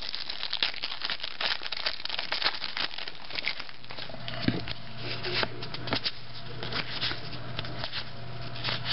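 Foil wrapper of a trading-card pack crinkling and tearing as it is ripped open by hand, a dense crackle that thins out about halfway into scattered rustles of the cards being handled. A low steady hum comes in about halfway.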